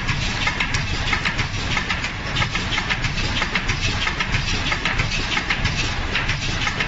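Automatic surgical face mask production line running: a steady low machine rumble with a fast, continuous clatter of small clicks from its moving parts.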